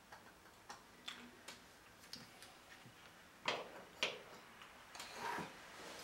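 Scattered light clicks and taps of a soldering iron, solder spool and locking pliers being handled on a granite countertop. Two sharper knocks come about three and a half and four seconds in, and a brief rustle about five seconds in.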